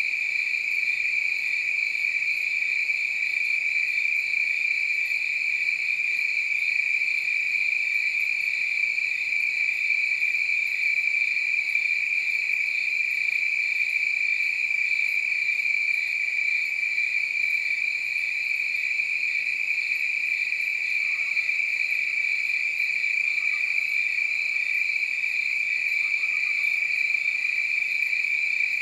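Crickets chirring in a continuous chorus, a steady high-pitched trill that holds unchanged throughout.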